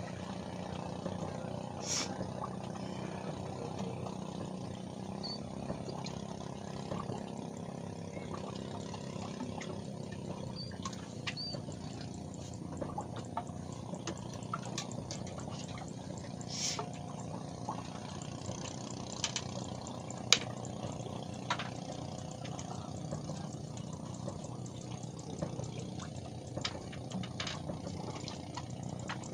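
Water lapping and trickling over a steady low hum, with scattered small clicks and knocks, the sharpest about two-thirds of the way through.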